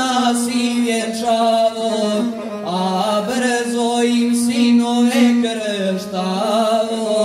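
A guslar's male voice chanting a zdravica (toast song) in the wavering, ornamented epic style, into a microphone, over the steady bowed tone of his gusle, the one-string folk fiddle.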